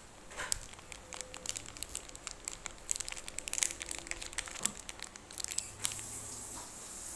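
Plastic snack wrapper crinkling and crackling as it is crumpled and folded in the hands, a rapid run of small crackles that stops about six seconds in.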